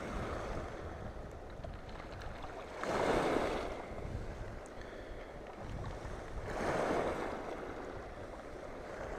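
Sea waves washing against the shore, two of them swelling louder about three and a half seconds apart, with wind buffeting the microphone.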